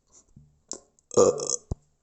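A person belching once: a short burp of about half a second, starting about a second in. A few faint clicks come before it and a sharp click follows just after.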